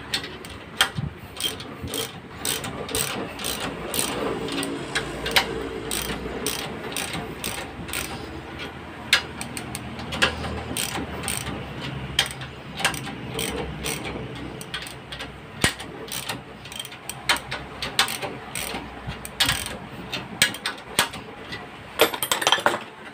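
Hand socket ratchet clicking in quick runs as it winds the screws of a motorcycle rear-shock spring compressor, compressing the coil spring so the lock can be fitted. Metal tools clink now and then.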